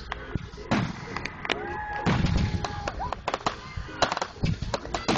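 Fireworks going off: a dense run of sharp pops and crackles, with heavier low booms about two seconds in.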